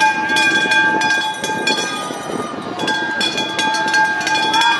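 A spectator's horn blown in two long steady blasts, the first breaking off about two seconds in and the second starting about a second later, over fast clicking and clattering as skiers pole past.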